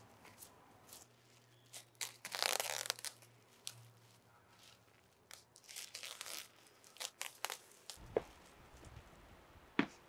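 Kitchen food-preparation handling sounds: a rustle lasting about a second starting two seconds in, another around six seconds, and scattered short clicks and taps.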